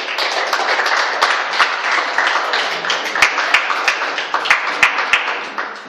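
A small group applauding: dense hand claps that start all at once, with a few sharper single claps standing out, then die away at the end.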